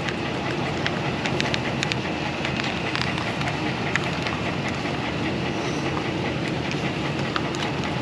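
Pickup truck engine idling steadily, with a few light clicks and taps over it.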